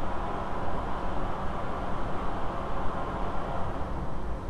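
Steady low rumbling background noise, even in level, with no distinct knocks or clicks.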